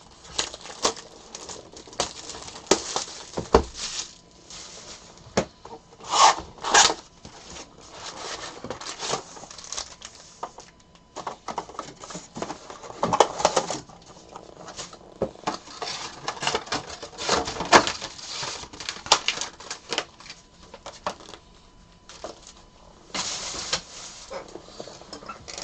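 Trading cards and their packaging being handled on a table: irregular rustling, sliding and light tapping, with sharp clicks and short swishes throughout.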